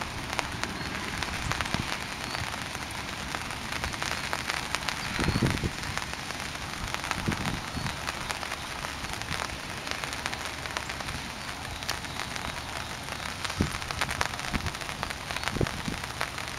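Rain pattering on an umbrella overhead: a steady hiss dotted with the sharp taps of single drops, with one brief dull bump about five seconds in.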